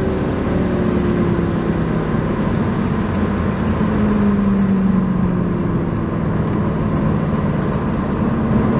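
Mercedes C63 AMG's 6.3-litre V8 heard from inside the cabin, running steadily at speed under road noise. Its pitch eases slowly down, steps up about four seconds in, then eases down again.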